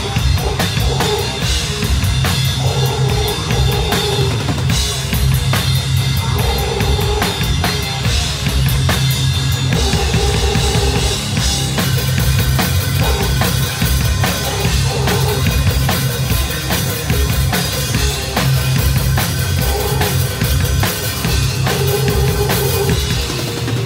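A death metal/crust band playing live, heard from on stage next to the drum kit. Dense drumming with bass drum, snare and cymbals sits up front over guitar and bass through the amps, and the music moves into a new part about halfway through.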